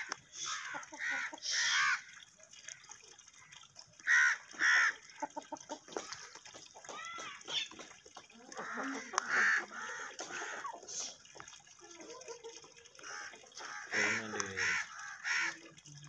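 Alexandrine parakeet calling in short squawks and chattering notes, some bending in pitch, in scattered bouts.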